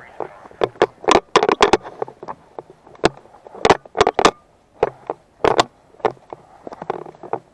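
Body-mounted GoPro knocking and rattling in its loosely secured base plate as the wearer moves: irregular sharp clicks and knocks, about two or three a second.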